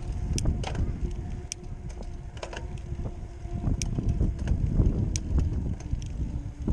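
Wind buffeting the microphone of a handlebar-mounted camera as a mountain bike rolls along a paved path, with scattered sharp clicks and rattles from the bike.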